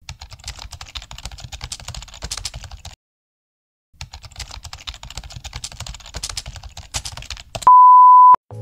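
Rapid keyboard-typing clicks that stop for about a second midway and then resume, followed near the end by a loud, steady single-pitch beep of under a second, like a censor bleep.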